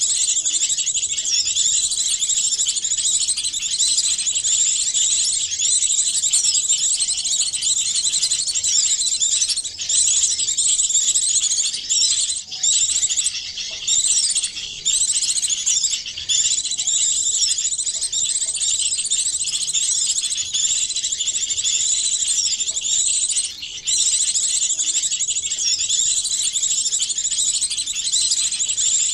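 Bird-lure recording of several small songbirds' calls mixed into one dense, unbroken high chirping and twittering. There are a few short gaps a little before halfway and again near the end.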